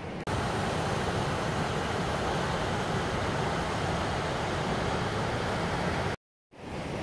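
Waterfall rushing: a steady, even noise of water pouring over rock. It starts abruptly just after the start and cuts out completely for a moment near the end.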